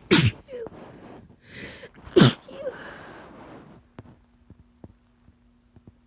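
A person who is sick sneezing twice, about two seconds apart, with a sharp intake of breath before the second sneeze.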